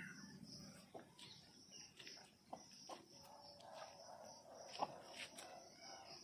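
Faint outdoor ambience: a steady high insect buzz, with a few scattered clicks and faint animal calls.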